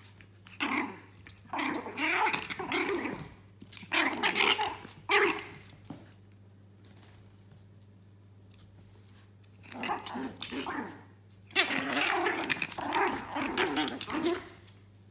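Two Yorkshire terrier puppies, about three months old, play-fighting with growls and small barks in bursts, with a lull of a few seconds in the middle.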